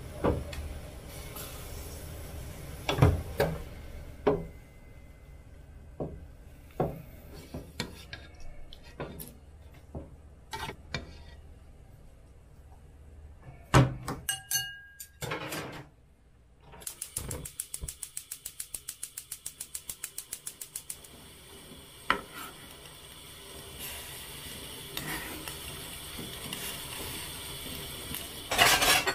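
Kitchen handling sounds from cooking ramyeon: pots, bowls and utensils knocking and clinking, some clinks ringing briefly. A fast, even run of ticks, about five a second, comes just past the middle, followed by a steady hiss.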